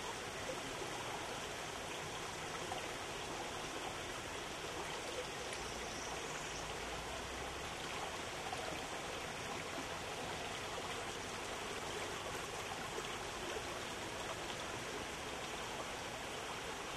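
Small woodland brook flowing steadily over rocks and shallows, an even, unchanging rush of water.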